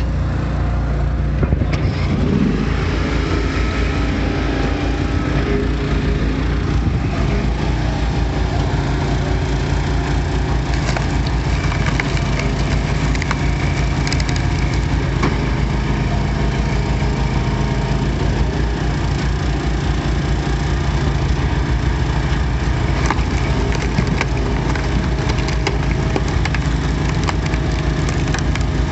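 Easton Made 2228 log splitter's 23 hp twin-cylinder Briggs & Stratton Vanguard engine running steadily, with occasional sharp cracks of wood as rounds are split.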